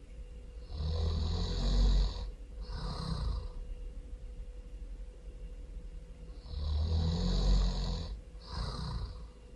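A person snoring loudly, twice: each time a long snore followed by a shorter one.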